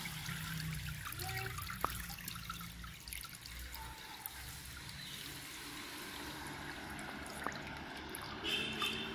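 Fermented red grapes being squeezed by hand in a plastic colander, the new wine trickling and dripping through into a steel pot below, with two sharp clicks along the way.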